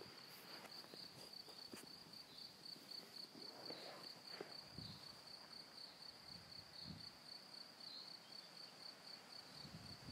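Faint cricket chirping: a high, thin pulse repeating about four times a second without a break, with a few soft rustles as people sit up from lying down.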